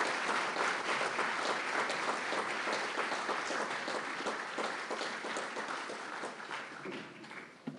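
Audience applauding, a dense clatter of many hands clapping that thins out and fades away over the last second or two.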